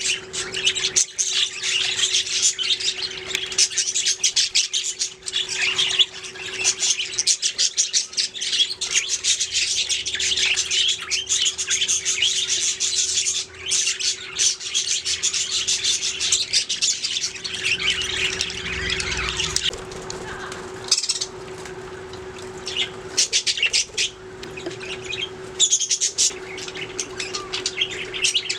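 Budgies chirping, chattering and squawking continuously, many quick calls overlapping, with a steady low hum underneath.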